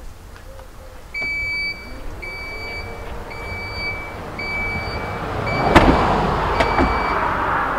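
A Jeep's power tailgate closes: its warning chime beeps about once a second while the tailgate motor hums. About six seconds in, the tailgate latches shut with a loud thud, followed by a smaller click.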